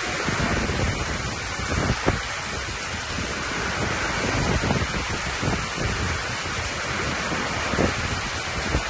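Heavy rain in a thunderstorm, a steady hiss, with water pouring off a roof edge close by and gusts of wind buffeting the microphone now and then.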